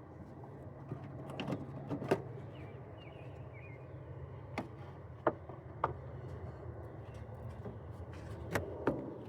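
A scattered series of sharp clicks and knocks from a car's fuse box being opened and its fuses handled, over a steady low hum.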